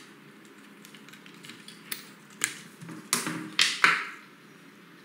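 A few short, sharp plastic clicks and taps as a RAM stick is pressed back into a desktop motherboard's memory slot. The loudest comes near the end.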